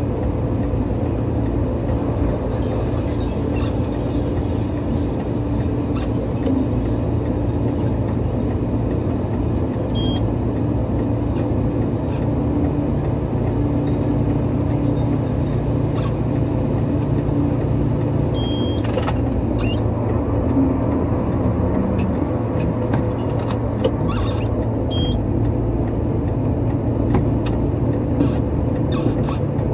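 Heavy vehicles' diesel engines running steadily, a deep, even drone. A few brief high chirps and sharp clicks stand out in the second half.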